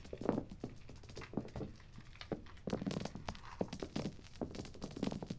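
Copper pennies raining down onto a shag carpet covered in coins: clusters of quick metallic clinks and dull taps as they land, coming in irregular bursts.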